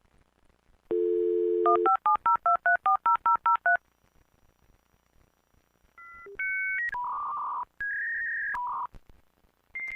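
Telephone dial tone, briefly, then a quick run of about eleven touch-tone keypad beeps as a number is dialled. A few short electronic tones of different pitches follow about two seconds later.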